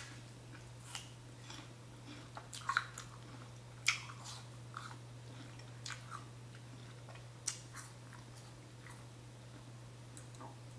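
A person chewing a mouthful of food close to the microphone, with scattered short wet mouth clicks and smacks at irregular intervals, over a steady low hum.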